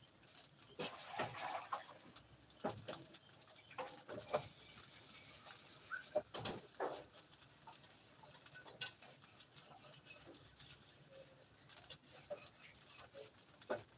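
Faint, irregular clicks and knocks, spaced a second or so apart, with a few brief higher pitched sounds among them.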